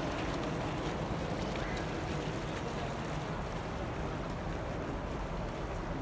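Small fountain jets splashing into a pond: a steady rushing, splashing noise that eases slightly in the second half.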